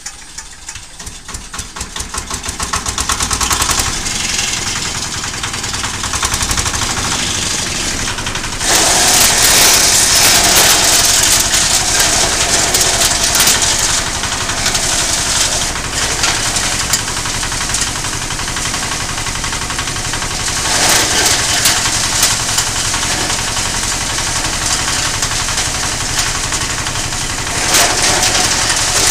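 Small single-cylinder diesel engine starting up, its separate beats quickening over the first few seconds, then running steadily to drive a compost shredder. From about nine seconds in, a loud hissing rush joins it as green plant material is fed in and chopped, easing off and returning in shorter bursts later.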